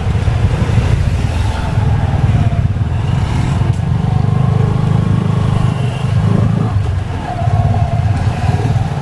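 Riding in a Cambodian tuk-tuk: the motorbike pulling the passenger carriage runs steadily along the road with a continuous low rumble. Engine tones of passing motorbikes come and go over it.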